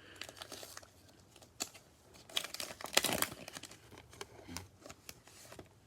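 Crinkling of a plastic cello-pack wrapper and trading cards being handled, a run of irregular rustles and clicks with the loudest rustle about three seconds in.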